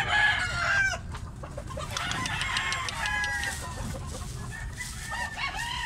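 Gamecock roosters crowing, several calls overlapping from different birds: a burst at the start, more from about two seconds in, and again near the end.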